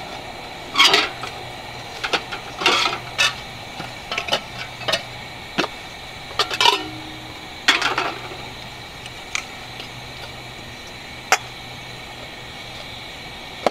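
Aluminium camp cookware clinking and clanking as pots, lids and a tin cup are handled and set down: irregular sharp knocks, one ringing briefly about six and a half seconds in. Under them runs the steady hiss of a lit gasoline camp stove.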